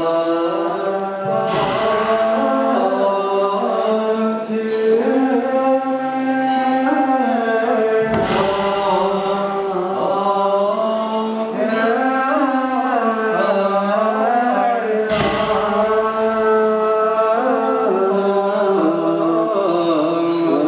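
Chanting voices over a steady drone, in the manner of Buddhist chant music, with a deep struck beat about every seven seconds, three times.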